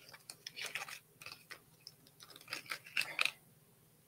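Small packaging being handled by hand: irregular rustling, crinkling and small clicks as an earbuds accessory is taken out of its box, with the louder crackles about a second in and again around three seconds in.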